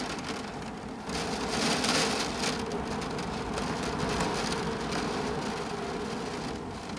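Heavy rain falling, with many close drop hits ticking on a surface near the microphone. It gets louder about a second in and then keeps up steadily.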